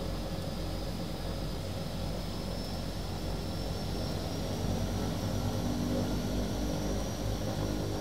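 Aircraft engines running steadily as the plane taxis: a continuous low rumble with a faint high whine that slowly rises and falls, swelling a little about halfway through.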